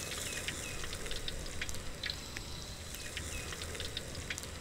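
Hot frying oil in a wok crackling with scattered small pops as a deep-fried whole barramundi is lifted out of it.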